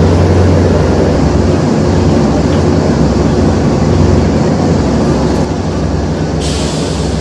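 Loud, steady, low drone of a running vehicle engine, easing slightly about five seconds in, with a short burst of hiss near the end.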